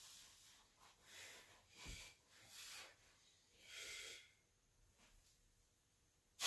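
Faint, sharp breaths from a lifter straining through a heavy set of bench presses, several puffs about a second apart, with a light knock about two seconds in.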